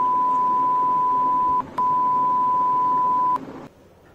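Censor bleep: a steady single-pitch beep blanking out swearing. It breaks off for a moment about one and a half seconds in, resumes, and stops after about three and a half seconds.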